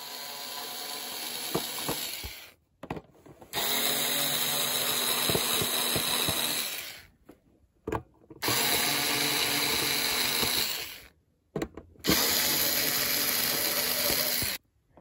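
Power drill driving screws in a plastic base plate, run in four bursts of two to three seconds each with short pauses between, backing the screws out to open the housing.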